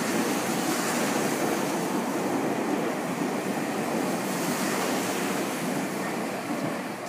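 Tokyu 6000 series electric train running through a station at speed without stopping: a steady rush of wheel and air noise that begins to fade near the end.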